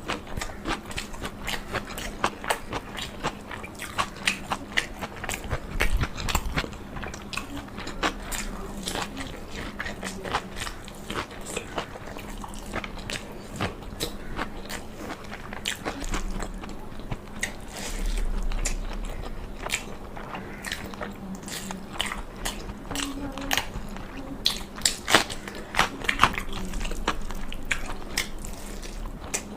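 Close-miked eating in mukbang style: chewing and biting with many irregular sharp mouth clicks and smacks, over a faint steady hum.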